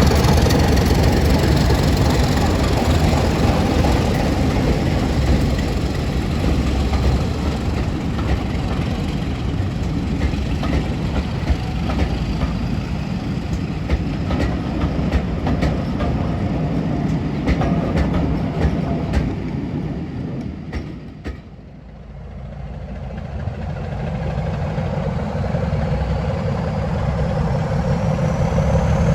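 Diesel locomotive-hauled train running by, its engine with wheels clicking over rail joints, fading away about three quarters of the way through. A diesel engine's steady running then builds again near the end.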